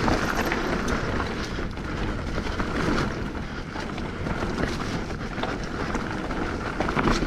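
Hardtail mountain bike riding fast down dirt singletrack: steady wind rush over the microphone and tyre noise, with frequent small rattles and clicks from the bike.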